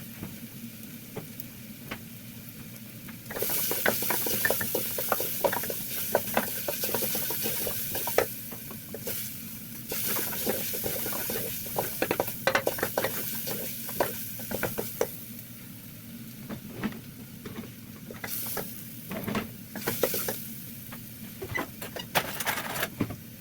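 Meat and onion frying in a pan, sizzling, and stirred with a spoon that clicks and scrapes against the pan. The sizzling gets much louder a few seconds in, eases off after the middle, and flares up briefly a couple of times near the end.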